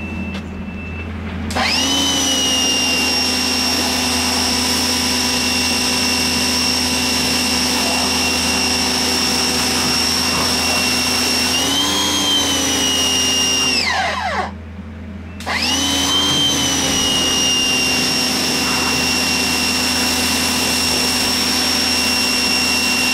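Electric pressure washer's motor and pump starting up and running with a steady high whine, winding down and stopping about two-thirds of the way through, then starting again about a second later.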